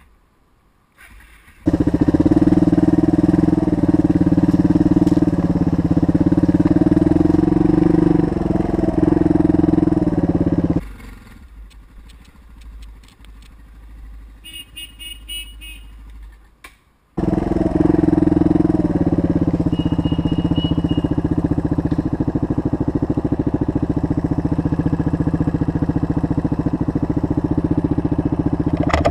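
Suzuki DR dual-sport motorcycle's single-cylinder engine running under way on a dirt trail, heard close up from the bike, its revs rising and falling. It drops away for several seconds in the middle, where a short run of high, rapid chirps is heard, then comes back loud.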